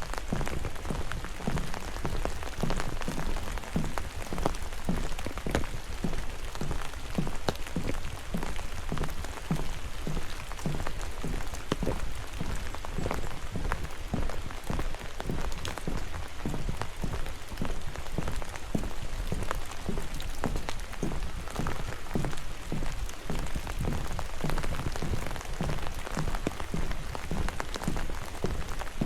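Steady rain, with many separate drops striking close to the microphone.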